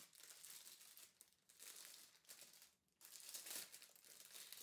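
Plastic wrapping crinkling in irregular bursts as it is peeled off a small clear plastic diamond-painting drill holder, with a brief pause a little past halfway.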